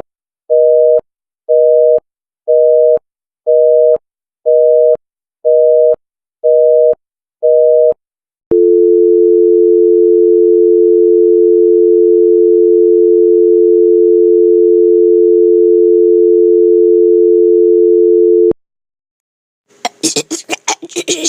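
Telephone busy signal: a two-tone beep pulsing on and off about once a second, which gives way about 8 seconds in to a steady dial tone that cuts off abruptly. A short burst of harsh noise follows near the end.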